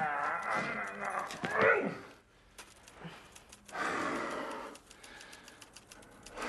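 A man's muffled groans and moans, pitched and wavering, as he is smothered with a plush teddy bear; they die away after about two seconds, and a short noisy rasp follows about four seconds in.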